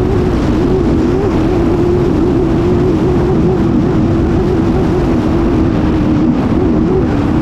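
Racing hydroplane's engine running at speed, heard from onboard the boat: a steady, loud drone whose pitch wavers slightly up and down as the hull rides the chop, over rushing wind and spray.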